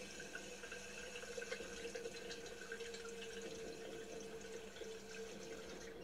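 Tap water running and splashing into a sink, heard through a TV speaker.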